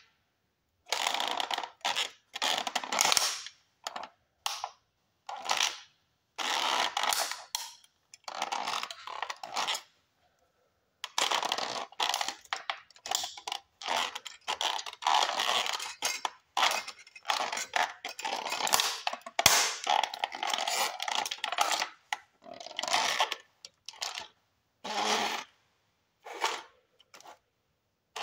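Toy Chevrolet Camaro model creaking and crackling under the pressure of a bare foot as it is crushed, in irregular bursts of crunching with short pauses between them.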